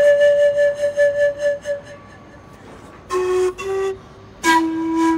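Pan flute played solo: a long breathy note held for about two seconds with a wavering loudness, then after a short pause two quick lower notes, and a third, lower note held through the end.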